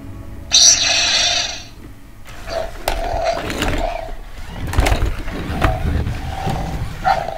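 Animatronic toys in action: a loud, hissing electronic sound effect from a toy speaker about half a second in, lasting about a second. It is followed by shorter buzzing sounds, the whir of small toy motors, wheels rolling on a hard floor and scattered clicks.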